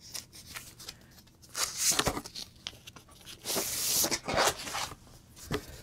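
Plastic record sleeve and paper inner sleeve crinkling and sliding as a vinyl LP is handled, in two spells of rustling about a second and a half in and again around three and a half seconds in, with a few light knocks.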